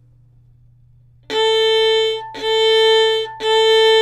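Violin played with martelé (hammered) bow strokes. After about a second of quiet come three separate strokes on the same note, each starting with an accented bite and stopping briefly before the next. The bite is deliberately uneven between down bows and up bows, a common martelé fault.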